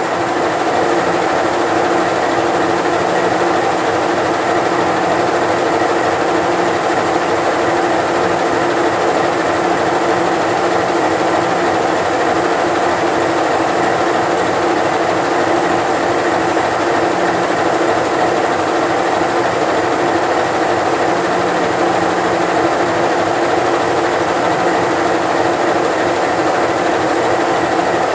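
CC 206 diesel-electric locomotive's GE 7FDL-8 V8 diesel engine idling: a loud, steady drone with a thin high whine over it, heard close beside the engine compartment.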